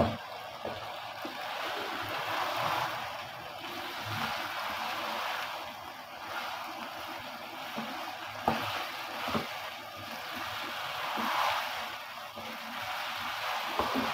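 Minced mutton and cubed potatoes sizzling in oil in a non-stick pan as they are fried together and stirred with a wooden spatula. The hiss swells and fades with the stirring, and the spatula knocks sharply against the pan a few times.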